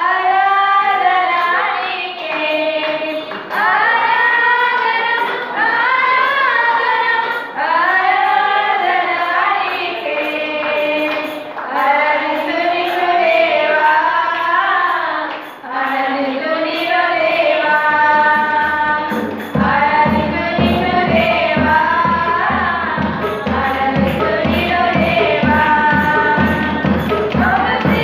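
Young women singing a devotional song together into microphones, the melody held in long, gliding phrases. About two-thirds of the way through, a fast, steady low beat joins under the voices.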